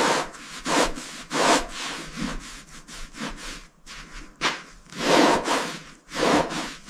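Rasping back-and-forth strokes on wood, like hand work on a board, repeating about once or twice a second with a short pause midway.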